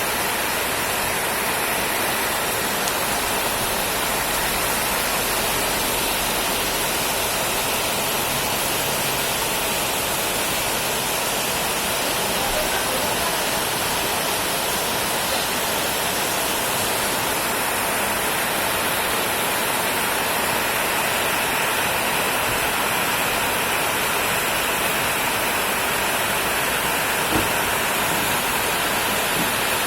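Rain falling steadily, an even hiss with no let-up, with one short tap near the end.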